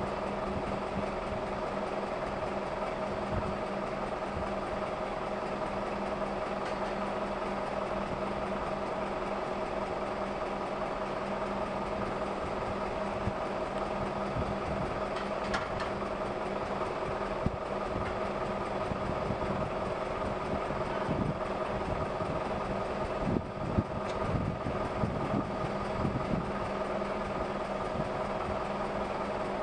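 Steady mechanical drone like a running engine, holding one even pitch, with a few short knocks in the second half.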